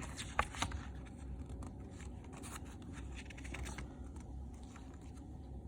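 Handling of a CD and its packaging: scattered light clicks and scratching of plastic and paper, the sharpest click about half a second in, over a low steady hum.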